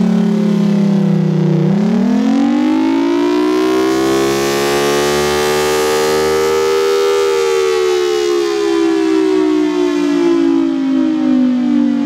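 Federal Signal Thunderbolt 1003 outdoor warning siren wailing. The pitch dips to a low point, rises smoothly for about five seconds, then slowly falls again: the rising-and-falling wail of its Attack signal.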